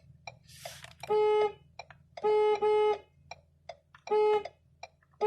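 Car turn-signal clicking at an even pace, about two and a half clicks a second, over a low steady hum from the car. A pitched warning chime sounds in a one-beep, two-beep pattern.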